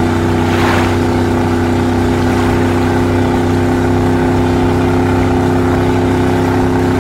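Motorboat engine running steadily, its pitch and level unchanging.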